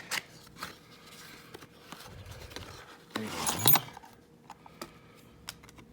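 A heavy padlock being handled and turned over in the hands: scattered small metallic clicks and taps, with a louder rub or scrape about three seconds in.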